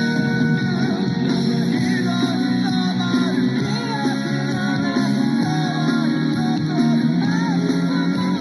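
Background music: a song with singing over guitar and band backing.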